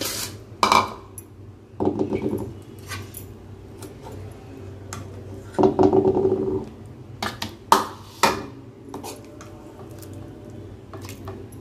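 Metal spatula knocking and scraping against a cooking pan while fish curry is scooped out, a run of irregular clinks and short scrapes over a low steady hum.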